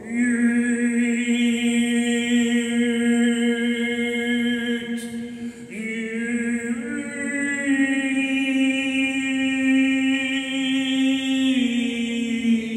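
A man's solo unaccompanied voice holding long, steady sung notes. He holds one note for about five seconds, breaks briefly, then slides into a new note that steps up twice and drops back down near the end.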